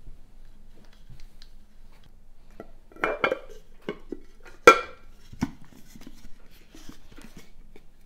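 Bamboo lid of an IKEA 365+ heat-resistant glass food container knocking and clinking against the glass as it is handled and fitted on. There are a few sharp knocks with a short glassy ring; the loudest comes about halfway through, followed by lighter handling taps.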